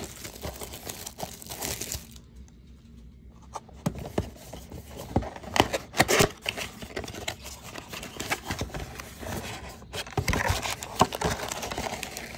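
Clear plastic wrap crinkling as it comes off a cardboard trading-card box, then the box's cardboard flaps tearing open, with several sharp snaps around the middle and more rustling of cardboard toward the end.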